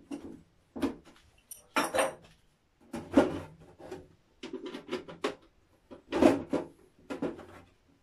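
Hard clear plastic of a small terrarium and its lid being handled and fitted: irregular knocks, clicks and rattles in separate bursts, the loudest about three-quarters of the way through.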